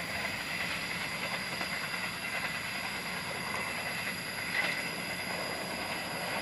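Train running along the track: a steady rumble of wheels on rail with no distinct knocks.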